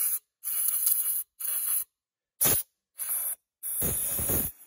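Compressed air from a blow gun hissing into the spark plug hole of a flooded Briggs & Stratton engine in about six short bursts that cut off sharply, blowing water out of the cylinder. The air seems to escape through an open exhaust valve.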